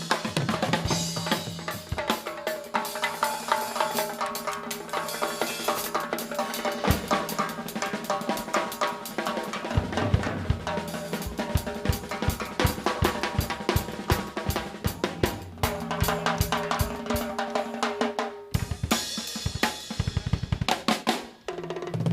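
Live drums played in a fast, dense rhythm of rapid strokes and rolls over steady held low notes, with a brief break about eighteen seconds in.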